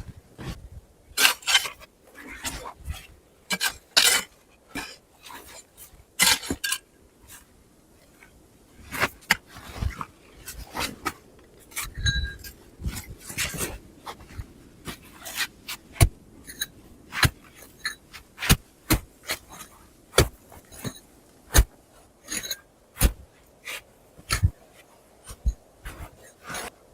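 An irregular series of sharp knocks and clicks, about one or two a second, a few of them with a brief metallic ring.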